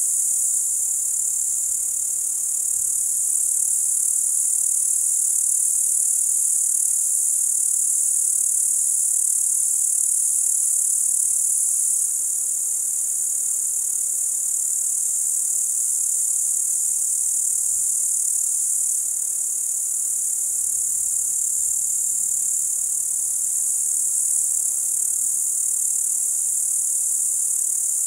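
Crickets singing at night in a steady, unbroken, high-pitched chorus.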